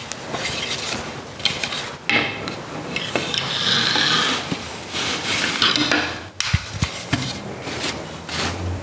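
Rag weaving on a wooden table loom: the weft and rag strips rubbing and scraping through the warp threads, with several short wooden knocks and clacks from the beater and frame, clustered about two-thirds of the way in.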